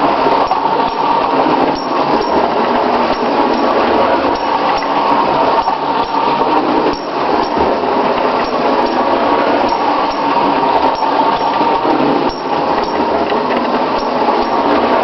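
Marx clockwork wind-up 0-4-0 toy locomotive running on O gauge track: its spring motor and gears make a steady whirring whine while the wheels clatter along the rails.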